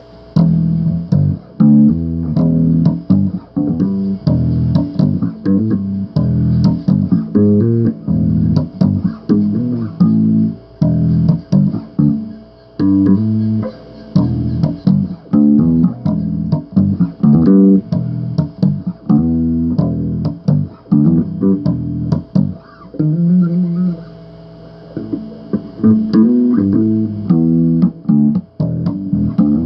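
Solo electric bass guitar riffing: a steady stream of plucked notes with short gaps between phrases and one brief pause late on.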